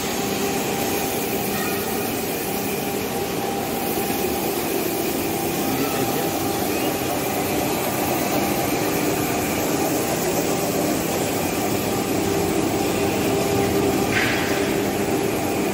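Motor-driven locomotive lifting jacks running as they raise a locomotive body off its bogies: a steady mechanical hum amid workshop noise, with a brief higher-pitched hiss near the end.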